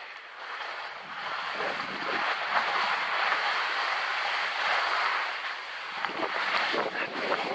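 Skis sliding over firm snow with wind rushing on the microphone, growing louder about a second in as the skier gathers speed. Near the end come short, sharp scrapes of the ski edges biting the snow.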